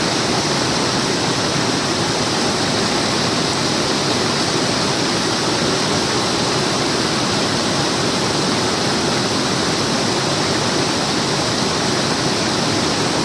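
A waterfall running in heavy, fast flow, swollen by cyclone rain. It makes a steady, loud, unbroken rush of falling water.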